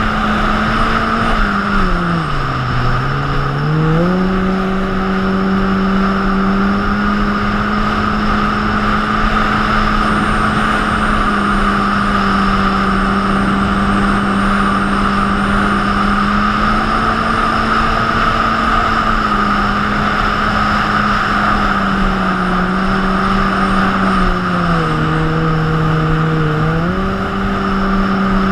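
Jet ski engine running steadily under way, its note dipping as the throttle eases off about two seconds in and again near the end, then picking back up. A steady rushing noise of water and wind runs beneath it.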